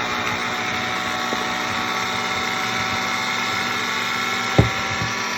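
Electric hand mixer running steadily, beating eggs into churro dough, with one sharp knock about four and a half seconds in.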